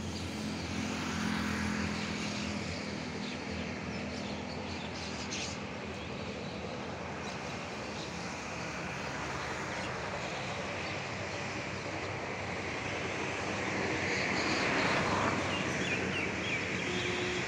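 SpiceJet Bombardier Q400 turboprop airliner on the runway, its engines and propellers giving a steady drone that grows louder about fourteen seconds in.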